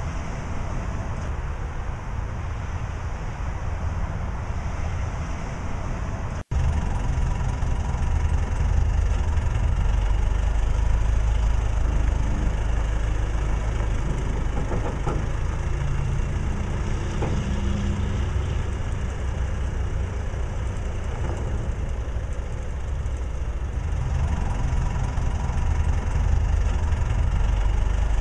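Wind noise for about six seconds, then, after an abrupt cut, an aircraft tow tractor's engine running steadily with a deep, low rumble.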